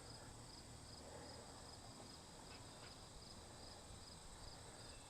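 Near silence with faint insect chirping, repeating evenly about three times a second.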